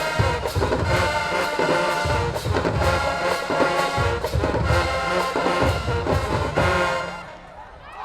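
Marching band brass section playing loudly, with trumpets and trombones over heavy low notes; the music stops about seven seconds in.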